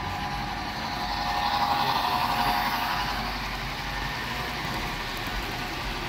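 Model steam locomotive with a Soundtraxx Tsunami2 sound decoder running with its passenger train, a steady running noise throughout. A mid-pitched tone swells about a second in and fades out by about halfway through.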